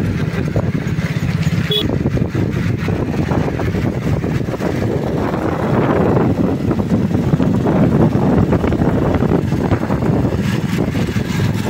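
Jawa 42 Bobber's single-cylinder engine running as the motorcycle rides along, a steady exhaust note that gets a little louder about six seconds in.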